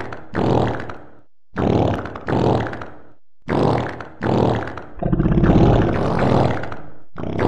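A run of deep, pitched fart sounds, mostly in pairs with short gaps, then one long fluttering fart of about two seconds starting about five seconds in, cut together in rhythm as a comedy song intro.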